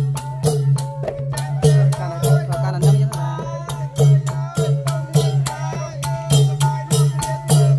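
Chhayam folk ensemble playing: long-bodied skor chhayam hand drums beat a steady, driving rhythm with sharp percussion clicks about three to four times a second, under a wavering high melody.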